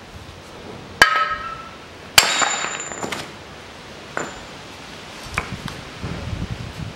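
Two ringing blows of a small sledgehammer, about a second apart, driving the front wheel hub out of a Mazda 6 steering knuckle held in the air, followed by a few lighter metallic knocks.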